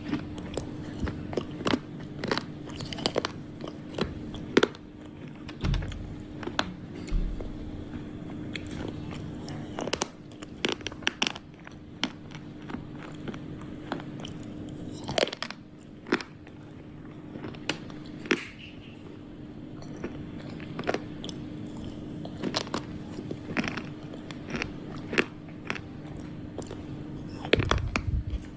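Slate pencils being bitten and chewed: a string of sharp, crisp crunches and snaps at irregular intervals, over a steady low hum.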